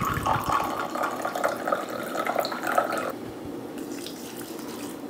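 Red wine poured from a bottle into a small glass, a steady liquid pour that stops about three seconds in.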